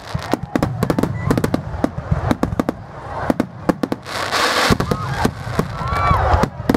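Aerial fireworks display: a rapid series of bangs and crackles from bursting shells, with a spell of hissing about four seconds in.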